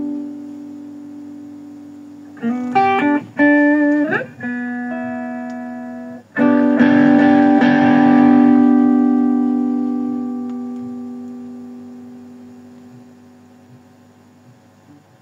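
Electric guitar played through an amplifier: a chord rings out and fades, then a few quick picked notes with one string bent upward, and about six seconds in a chord is struck and left to ring, slowly dying away.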